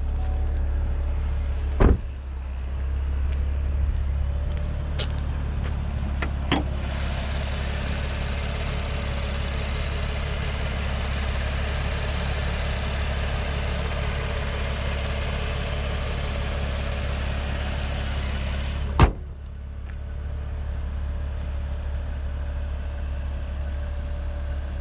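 Chevrolet Camaro's engine running at idle, a steady low hum with louder mechanical noise while the engine bay is exposed. There are a couple of door thumps early on and one loud slam about nineteen seconds in, after which the engine sound is muffled.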